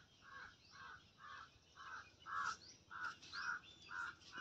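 A crow cawing over and over, faintly, about two caws a second, with a few thin high chirps of small birds among them.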